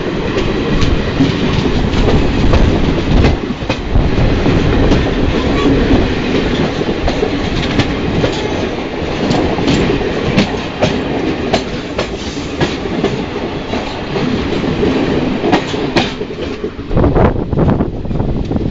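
Two Indian Railways express trains running past each other at close range on adjacent tracks, heard from an open coach doorway: a loud continuous rumble of steel wheels on rail with rapid clickety-clack clicks over the rail joints. It eases near the end as the last coach of the other train goes by.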